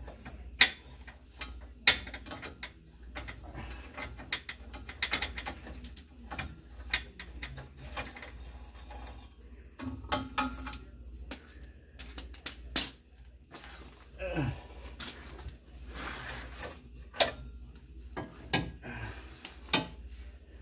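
A ratchet and socket on a long extension working on exhaust hardware under a pickup: scattered metal clicks and clinks of the tools. A short falling sound comes about two-thirds of the way through.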